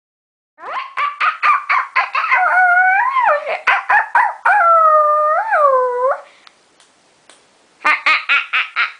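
High-pitched howl-like vocalizing: a run of quick yelping pulses, then two long wavering howls that rise and fall, and after a short pause more quick yelps near the end.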